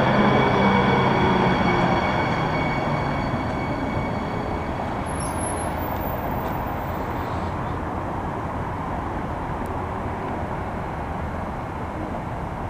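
Two-car Kinki Sharyo light rail train pulling away from the station. The whine of its electric drive fades out within the first few seconds, and its running noise slowly dies down as it moves off.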